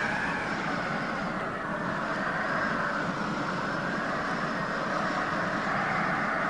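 Howling wind sound effect: a steady rushing whose pitch slowly rises and falls.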